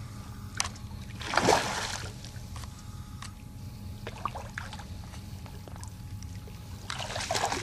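Hooked fish splashing at the surface as it is reeled in and landed from shore: one loud splash about a second and a half in, a few small knocks, then a longer run of splashing near the end.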